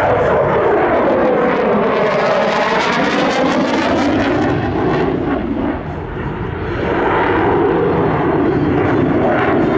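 Dassault Rafale fighter's twin-turbofan jet noise, loud and steady, with a sweeping, phasing whoosh over the first few seconds as it passes. The noise dips briefly about six seconds in, then builds back up.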